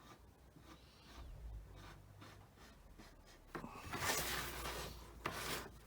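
Pen marking lines on the side of a plastic 25-litre barrel: faint at first, then a run of scratchy drawing strokes in the second half.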